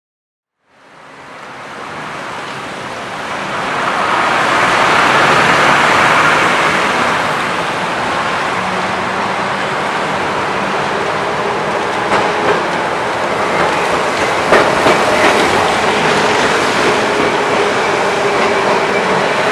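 Milan's vintage Peter Witt trams running on wet street rails: a steady rail rumble that fades in about a second in and swells over the next few seconds, with wheel clatter and a few sharp clicks later on.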